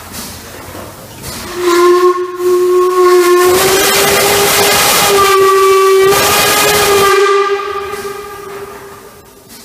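Steam locomotive 46100 'Royal Scot' sounding its whistle: one long, steady, fairly low note that starts about two seconds in, steps slightly in pitch twice and fades away near the end. A loud hiss of escaping steam, from the cylinder drain cocks, joins it for the middle few seconds.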